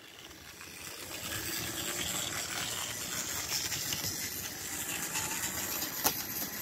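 Small HO-scale model switcher locomotive running backwards along the track: a steady whirr of its little electric motor and wheels on the rails, building from about a second in, with one sharp click near the end.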